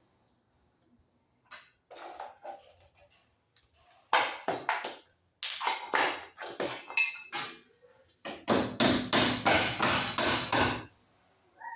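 Hammer striking metal: scattered blows at first, then a fast run of blows about eight seconds in.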